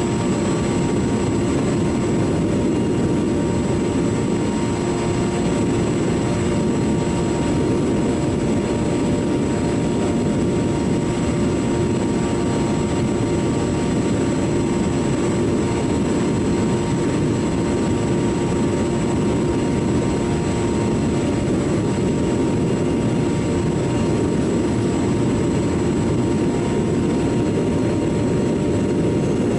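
Model airplane's motor and propeller running steadily in flight, heard from a camera mounted on the plane: a constant drone with a steady tone, mixed with rushing wind.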